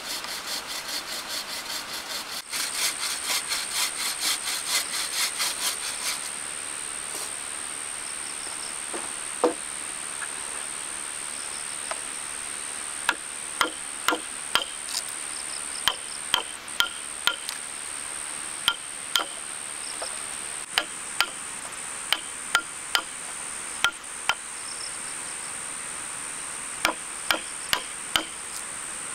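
Hand saw cutting through a timber beam in quick back-and-forth strokes for the first few seconds. Then a wood chisel is struck again and again to cut a mortise in the beam, giving sharp knocks with a short ring, often about a second apart. A steady high insect drone runs underneath.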